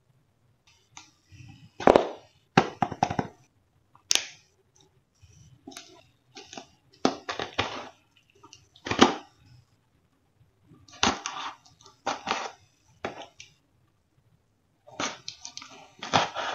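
Cardboard shipping box wrapped in packing tape being handled and opened by gloved hands: a series of irregular scrapes and crackles with short pauses between.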